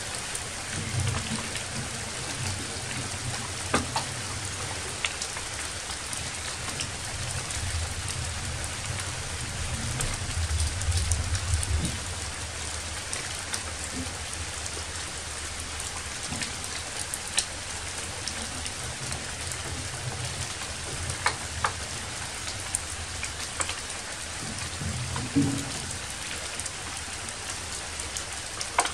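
Steady rain falling, an even hiss with scattered louder drops ticking, and a soft low rumble swelling for a couple of seconds around the middle.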